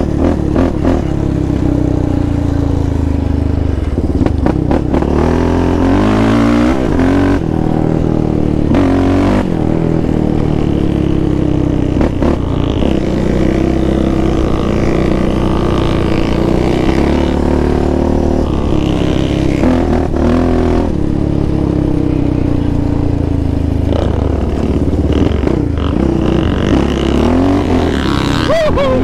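Yamaha Raptor 700R quad's single-cylinder four-stroke engine being ridden along a dirt trail, its pitch rising and falling again and again as the throttle is worked.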